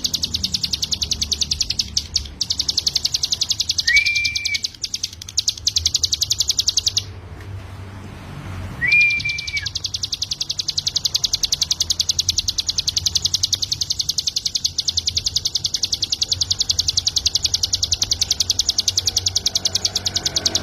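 Ciblek gunung, a small prinia songbird, singing nonstop: a fast, even trill of high notes. The trill breaks off for about two seconds midway, with a short lower slurred whistle just before and just after the break. A low steady hum runs underneath.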